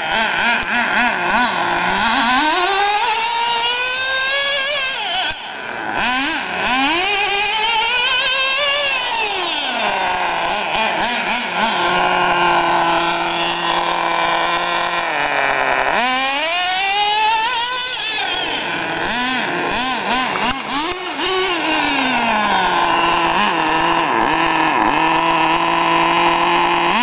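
Traxxas Nitro Sport RC car's nitro glow engine running, revving up and down again and again as it is driven. It settles twice to a steady idle for a few seconds.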